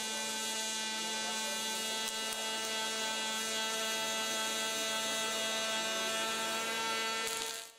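Robotic MIG welding arc from a KUKA arc-welding robot: a steady buzzing hum with a hiss over it, cutting off suddenly just before the end.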